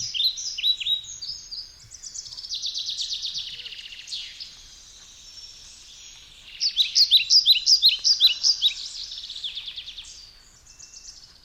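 Several songbirds singing and calling at once: quick high chirps and downward-slurred notes, with a fast trill, dying down in the middle, swelling again, then fading near the end.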